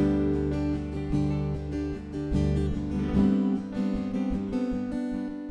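Background music led by a strummed acoustic guitar; the low notes drop out about three seconds in and the music begins to fade toward the end.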